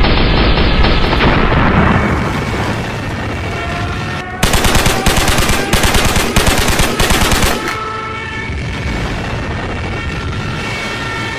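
Battle sound effects: the rumble of an explosion fades over the first two seconds. About four seconds in comes roughly three seconds of rapid machine-gun fire in short bursts, over the steady drone of a fighter plane's engine, whose pitch glides slowly.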